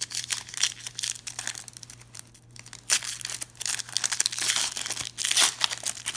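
Wrapper of a trading card pack crinkling and tearing as it is opened by hand: a dense crackle full of sharp snaps, louder in the second half.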